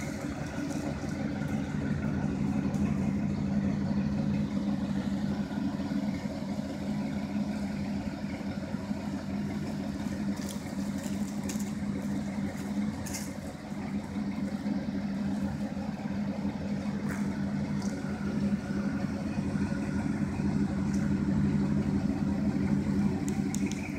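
A Chevrolet pickup truck's engine idling steadily, a constant low hum.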